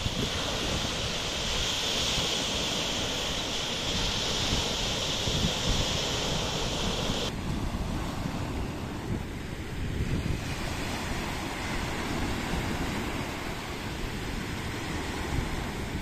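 Small North Sea waves breaking and washing up over a sandy, pebbly beach, with wind buffeting the microphone. A bright hiss in the wash drops away suddenly about seven seconds in.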